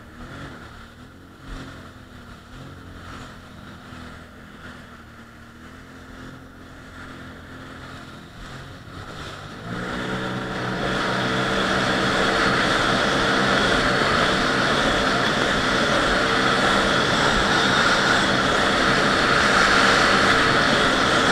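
Jet ski engine running low and steady, then throttled up about halfway through. The engine note thickens and it runs loud at speed, with a rushing hiss.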